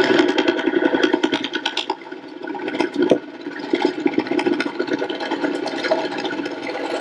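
Cordless drill running under load as a spade bit bores through a wooden cabinet wall, a steady motor whine that sags briefly about two seconds in and then picks up again.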